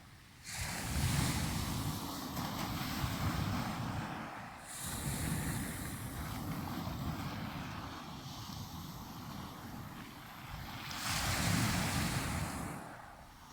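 Black Sea waves breaking and washing on the shore in three surges a few seconds apart, each swelling and then falling away. Wind rumbles on the microphone.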